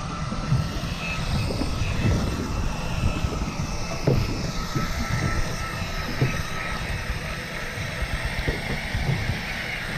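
Electric deep-sea fishing reel winding in line with a steady motor whine, over the rumble of a boat's engine and wind buffeting the microphone.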